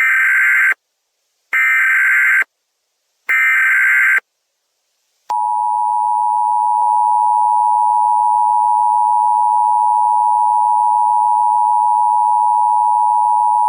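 Emergency Alert System tones: three short bursts of SAME header data, each under a second long and about a second apart, then about five seconds in the steady two-tone attention signal begins and holds.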